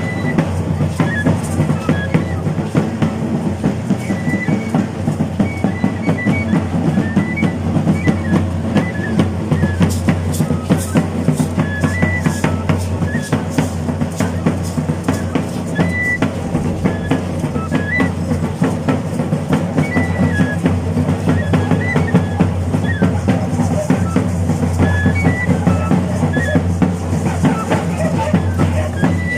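Traditional Chiapas festival music: a tambor (drum) beaten in a fast, steady, unbroken rhythm, with a carrizo cane flute piping short high notes over it.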